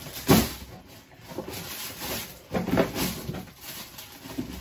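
Rummaging and handling noises close to the microphone: rustling and knocks, with a sharp bump just after the start and another cluster of knocks a little past halfway.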